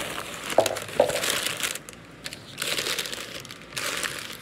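Bubble wrap and packing material crinkling and rustling as a shipping box is unpacked, in several bouts with a couple of sharp crackles about a second in.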